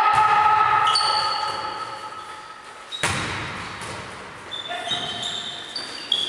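Volleyball rally in a sports hall. A long shouted call trails off in the first second, then the ball is struck sharply about three seconds in and rings around the hall. Short high shoe squeaks on the court floor come and go, and a second hit follows near the end.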